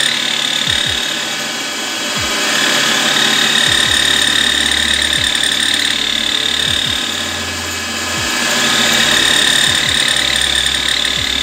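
Grinding stone spinning in a metal lathe's chuck, grinding the cutting edge of a two-flute end mill: a steady abrasive hiss with a high ringing tone, easing about two seconds in and again near eight seconds before swelling back.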